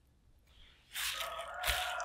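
Wooden spoon tossing shredded raw potato in a glass bowl: a moist rustling begins about a second in, with a knock of the spoon against the glass near the end.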